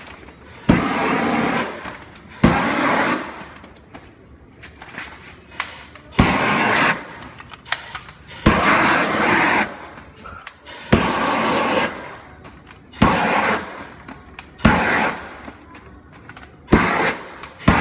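An 18,000 BTU propane shrink-wrap heat gun fired in short bursts, about eight times. Each burst opens with a sharp pop as it lights, followed by a rush of burning gas lasting about a second, as the plastic wrap is heated to shrink it tight.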